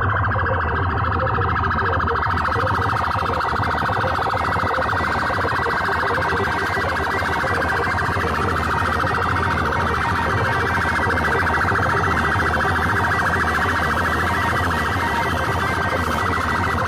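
Very loud siren-like wail blasted through a stack of horn loudspeakers, warbling rapidly and unbroken, with a steady low drone underneath.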